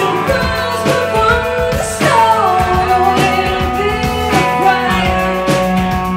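Live rock band: a woman singing over guitar, with a steady beat; her voice slides down in pitch about two seconds in.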